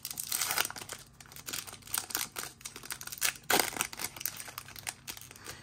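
Thin plastic wrapper of a baseball trading-card pack being torn open and crinkled by hand, with irregular crackles. There is a louder crinkle about three and a half seconds in.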